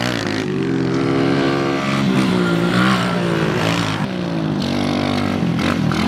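Kawasaki KLX 110 pit bike's small single-cylinder four-stroke engine revving up and down as the bike is ridden hard, its pitch rising and falling several times.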